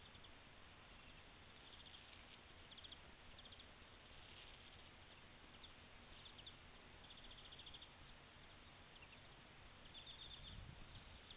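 Near silence: faint outdoor background hiss with short, high-pitched chirping trills that recur every second or two.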